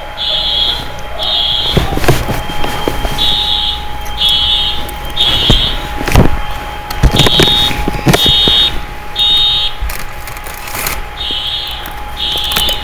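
Building fire alarm sounding the temporal-three evacuation pattern: three high-pitched half-second blasts, a pause, then three more, over and over. Scattered thumps and knocks sound among the blasts.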